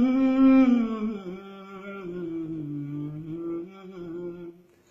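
A singer holding one long, wordless note in a Malayalam folk-style song, the pitch sliding down about a second in and rising a little near the end before it fades out.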